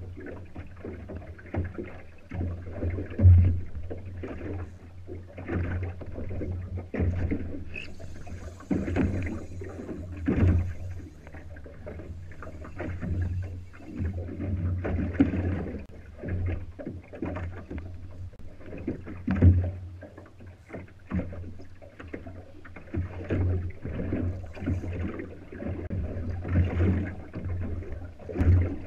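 Water slapping and knocking irregularly against the hull of a small boat drifting at sea, over a steady low rumble.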